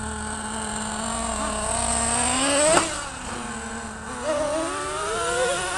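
Small two-stroke nitro engine of an RC monster truck revving as the truck pulls away. It climbs to a peak about three seconds in, cuts back sharply, then revs up again twice near the end, while a second nitro engine idles steadily underneath.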